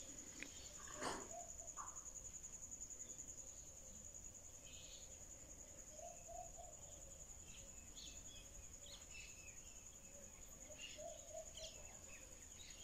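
Faint outdoor ambience: a steady high-pitched insect drone with scattered faint bird chirps, and a single soft knock about a second in.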